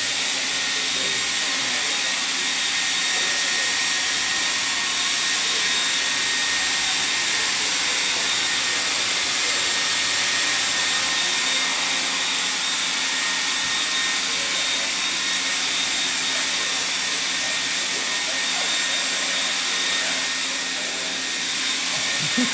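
Steady mechanical hiss with a faint high whine, and a short soft knock near the end.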